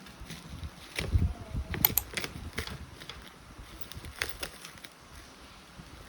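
Scattered light clicks and taps, a few close together about two seconds in, over faint background noise, with a soft low thump about a second in.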